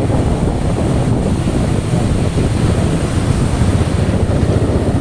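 Wind buffeting the microphone on a moving vehicle: a steady, loud low rumble with no let-up.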